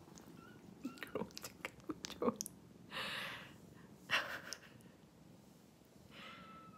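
Kittens comfort-suckling on one another's fur in place of their mother: a run of small wet sucking and smacking clicks, then two short breathy rustles.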